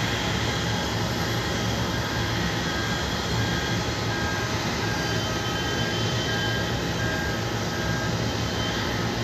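Steady airliner cabin noise on the ground: a low engine and air-conditioning hum under a constant rush of air, with no changes.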